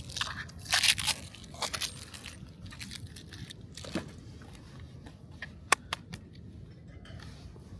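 Crinkly rustling and crunching of packaging being handled, loudest in the first two seconds, then a few sharp clicks around the middle.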